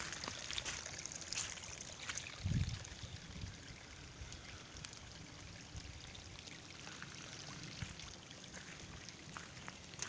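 Shallow runoff water trickling and running over a gravel road, a faint steady hiss, with a brief low thump about two and a half seconds in.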